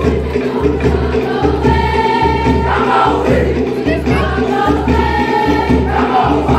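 A large group of young voices singing a Cook Islands song in chorus, with long held notes, over a steady low drum beat.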